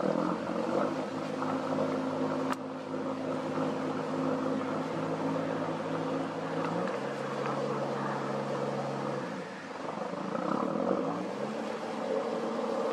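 Motor cruiser's inboard engine running as the boat passes close by. Its note shifts about halfway through and rises again near the end, with an even hiss beneath.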